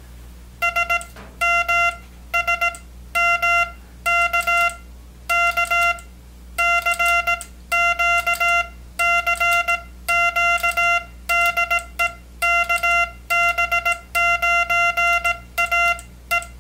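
Morse code sidetone from the EICO 717 tube electronic keyer's built-in monitor speaker: a steady mid-pitched buzzy tone keyed on and off in machine-timed dots and dashes as the paddle is worked, starting about half a second in.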